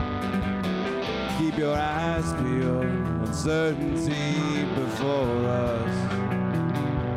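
Live rock band playing an instrumental passage: two electric guitars, electric bass and drum kit, with cymbal hits. A lead line rises and falls in pitch every second or two, like guitar string bends.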